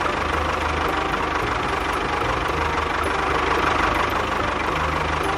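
Small engine of a homemade mini tractor running steadily, just after being started.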